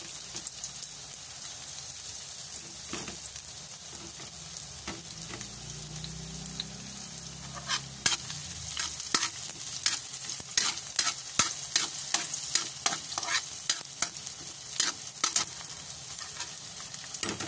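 Diced onion and garlic sizzling in hot oil in a wok, stirred with a metal ladle that scrapes and clacks against the pan. The clacks come thick and fast from about halfway through.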